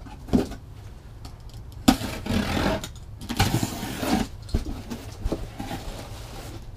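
Utility knife slicing through the packing tape along a cardboard box's seam, in two longer strokes of about a second each, among small clicks and knocks as the box is handled. Near the end the cardboard flaps are pulled open.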